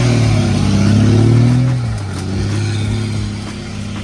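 Second-generation Dodge Ram's Cummins 5.9-litre inline-six turbo diesel revving hard under load while the rear tyres spin in grass and dirt. The engine note climbs over the first second and a half, then drops about two seconds in and runs on lower and quieter as the truck pulls away.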